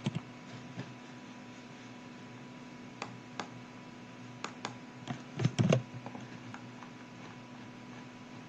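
Scattered sharp clicks of a computer keyboard and mouse, with a louder knock about five and a half seconds in, over a faint steady electrical hum.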